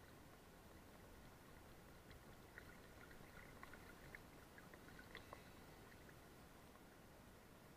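Faint, muffled river water lapping and trickling against a camera held at the water's surface, with a scatter of small clicks and droplet ticks from about two to five and a half seconds in.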